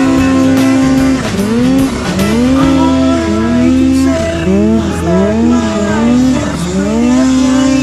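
Polaris snowmobile's two-stroke engine revving hard: held high at first, then a string of quick throttle blips, each rising in pitch and dropping back about every half second, and held high again near the end, as the sled is worked free of deep powder and driven off.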